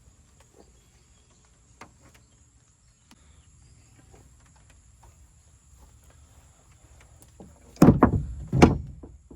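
Two loud, heavy thumps less than a second apart near the end, after a few faint clicks.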